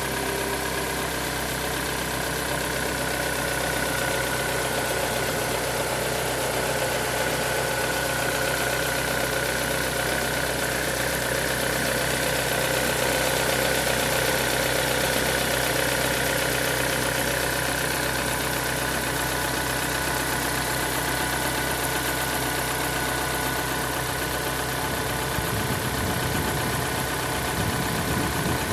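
Car engine idling steadily with a knock in it, the knock being what is being recorded.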